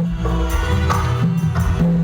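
Music with kendang hand-drum strokes, several sharp hits over held melodic notes and a low drum pulse.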